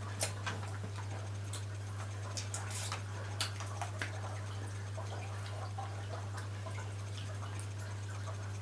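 Steady low electrical hum, with a few faint scattered clicks in the first few seconds: small mouth sounds of someone sucking a hard lollipop to taste its flavour.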